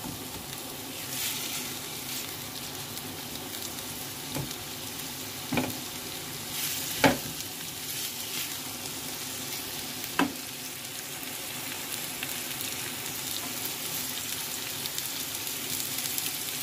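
Sliced onions frying in soybean oil in a nonstick pan: a steady sizzle as a spatula stirs them, with four sharp knocks of the spatula against the pan in the first ten seconds or so.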